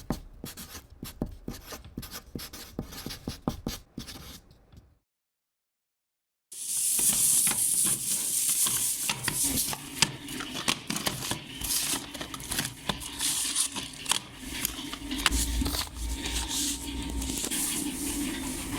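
Small clicks and rattles for about five seconds, a sudden cut to silence, then from about six and a half seconds a firework-star rolling machine running: its turning drum tumbles the stars with a steady hissing rattle and scattered clicks.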